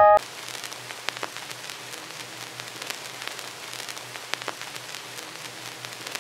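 Vinyl-noise sample played back in the TAL-Drum sampler: a steady surface hiss with scattered crackles and pops.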